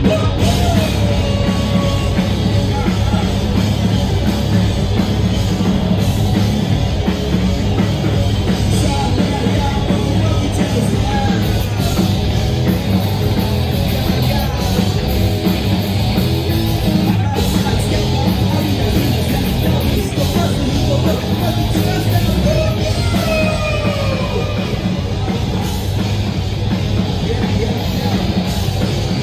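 A live rock band playing a loud, steady song on electric guitar and drum kit, with a vocalist on the microphone over it, heard from within the audience.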